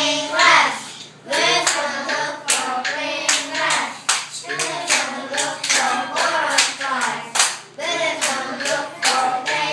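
A group of young children singing together while clapping their hands in rhythm.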